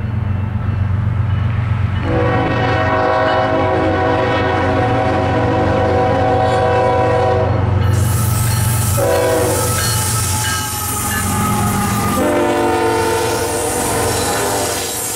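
Norfolk Southern freight train's diesel locomotives sounding the air horn for a grade crossing: long horn blasts, a short blast about nine seconds in, then another long one, over the steady drone of the engines. From about eight seconds in, wheels clatter on the rails as the locomotives pass.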